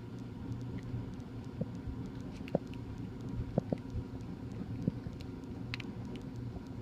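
A few short, sharp clicks of small plastic and metal parts as a table saw's rocker power switch is taken apart by hand, over a steady low hum in the background.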